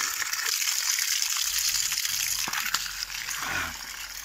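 Water gushing and splashing from the outlet of a freshly drilled Abyssinian well as it is pumped out, a strong stream of about 2,160 litres an hour; a steady hiss that eases a little near the end.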